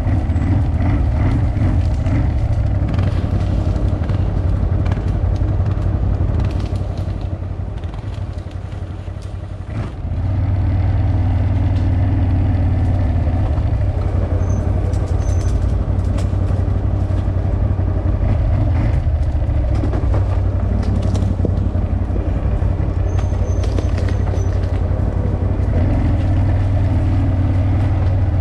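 CFMoto CForce 1000 ATV's V-twin engine running under throttle, with scattered knocks. The engine eases off and gets quieter for a few seconds, then comes back on hard about ten seconds in and holds steady.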